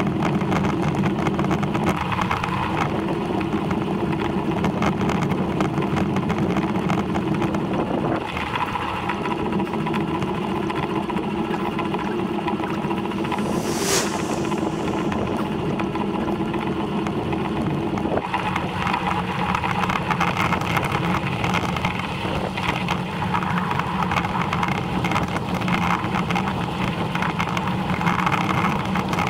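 Steady road and wind noise of a bicycle rolling along a tarmac lane, tyre rumble with wind buffeting the microphone, changing in tone twice as the road surface or speed changes. A single sharp tick about halfway through.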